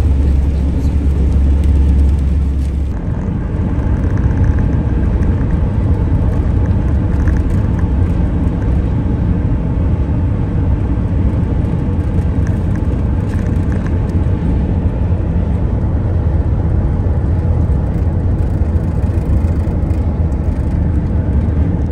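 Cab noise of a camper van cruising on a motorway at about 100 km/h: a steady engine drone mixed with tyre and road noise. The sound changes about three seconds in.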